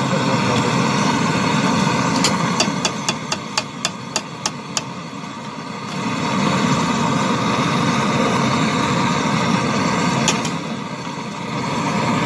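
Gas brazing torch flame roaring steadily on a copper refrigerant pipe joint at the compressor, softening briefly twice. About three seconds in comes a quick run of roughly ten sharp clicks, about four a second, and one more click near the end.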